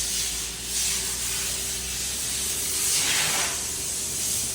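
1995 Ford V8 engine idling steadily while its ignition is scoped, heard as an even hiss over a low hum.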